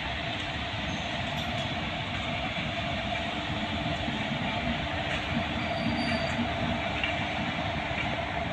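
Several coupled electric locomotives running light past the trackside at low speed: a steady rumble of steel wheels on the rails with a constant machinery hum.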